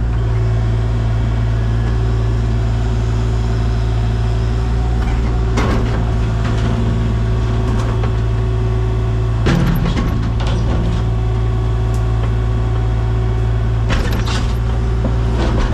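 An engine running at a steady speed, a constant low hum, with a few short knocks or clanks about six, nine and a half, and fourteen seconds in.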